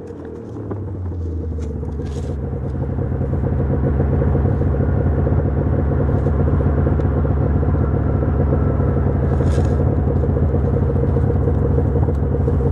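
Two-stroke snowmobile engine towing a rider on a strap, building up over the first few seconds, then running steady at speed.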